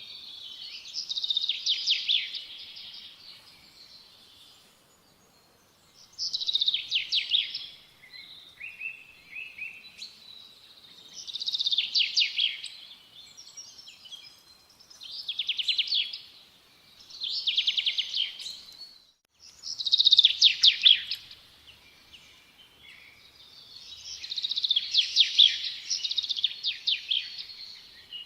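A small songbird singing: repeated phrases of fast, high trilled notes, each lasting a second or two, with short pauses between them.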